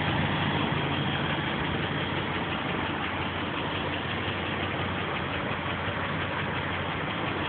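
A 2006 Dodge Durango's 5.7 L Hemi V8 idling with a steady, rapid ticking, the so-called Hemi tick, which is heard only on the right, passenger side. It has grown louder over time; others put it down to a manifold bolt, and the owner fears bad lifters.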